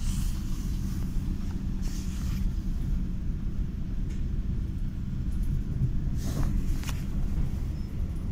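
Steady low rumble of a regional passenger train running along the line, heard from inside the carriage, with a few brief rattles.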